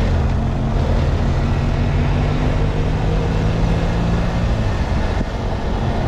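Motorcycle engine running steadily under way, over a constant rushing noise. The engine note and level dip briefly about five seconds in.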